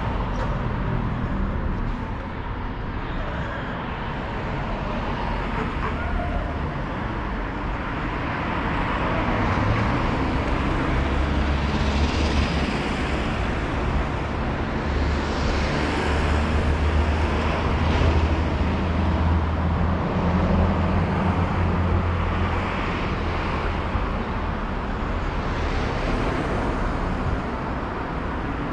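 Road traffic on a multi-lane street: cars going by one after another, each passing vehicle swelling and fading over a steady low rumble of engines and tyres.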